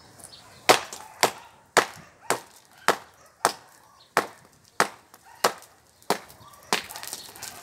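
Hand hammer striking the base of a concrete post, about a dozen sharp blows at a steady pace of a little under two a second. The blows are chipping away the cracked, crumbling concrete at the foot of the post to weaken it for felling.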